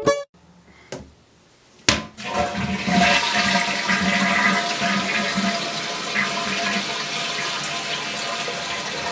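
Briggs toilet being flushed: a sharp click of the tank lever about two seconds in, then a steady rush of flushing water.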